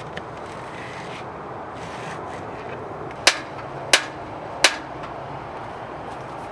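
Three sharp clicks, about two-thirds of a second apart, from the push-button igniter of a two-burner propane camp stove as a burner knob is worked to light it.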